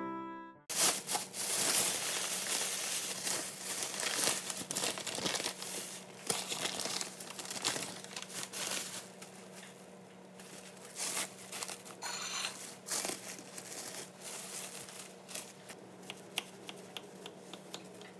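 Clear plastic wrap crinkling and rustling as a packaged roll cake is handled and unwrapped, with lots of small crackles that thin out later on.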